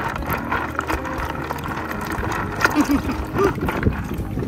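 Seawater sloshing and trickling in a plastic bucket of live lightning whelks as the bucket is tilted by hand, over a steady low rumble.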